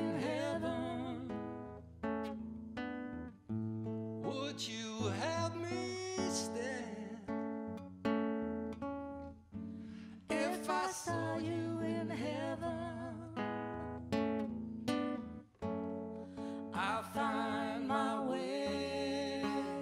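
Live acoustic music: an acoustic guitar and an upright double bass playing a slow song, with a voice singing phrases every few seconds over them.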